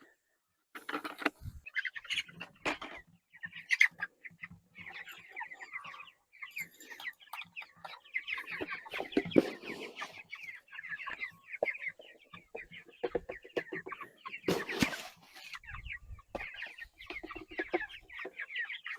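Flock of pastured broiler chickens clucking and chattering, with scattered knocks and clatter. A louder sharp noise comes about three-quarters of the way through.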